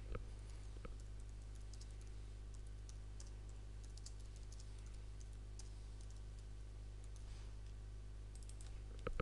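Computer keyboard typing: light, scattered keystrokes in short runs, over a steady low hum.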